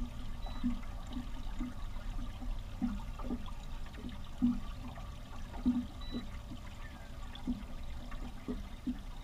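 Small waves lapping and slapping against the hull of a small aluminum boat in irregular soft knocks, about two a second, over a steady low wind rumble on the microphone.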